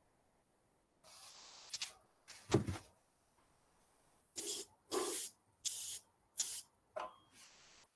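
Paint being sprayed: a longer spray about a second in, a knock, then five short spray bursts about two-thirds of a second apart.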